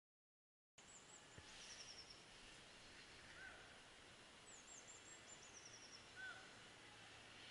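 Faint birdsong in still woodland: twice, a short run of high notes that fall in pitch, each followed a second or so later by a single softer, lower note, over a quiet, even background hush. The sound begins just under a second in, after total silence.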